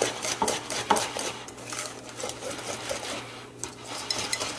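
Wire whisk beating a thick spiced flour batter in a glass bowl, in rapid rhythmic strokes, its wires clicking and scraping against the glass, with the wet slap of the batter; the strongest strike comes about a second in.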